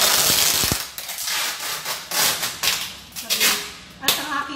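A packed cardboard box being pressed down and worked on by hand: repeated rustling and scraping noises in bursts, with a sharp knock about four seconds in.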